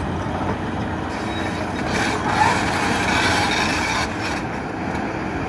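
Terex RH30F hydraulic mining excavator running under load as its Xcentric XR80 ripper works into the rock face: a steady, loud rattling machine noise over the diesel engine, growing harsher for a couple of seconds in the middle.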